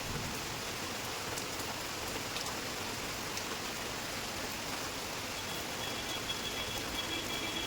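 Heavy rain falling: a steady, even hiss with a few faint ticks. A faint high tone comes in near the end.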